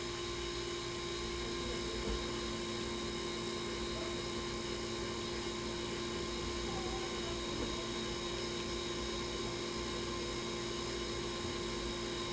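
Steady electrical hum with a faint even hiss: room tone, with a light tap about two seconds in.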